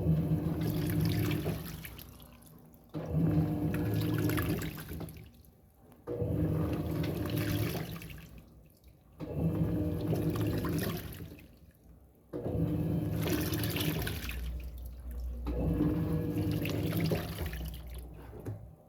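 Electrolux Turbo Economia LTD06 washing machine agitating: the motor hums and the water and clothes slosh for a second or two, then it coasts down and pauses, repeating about every three seconds.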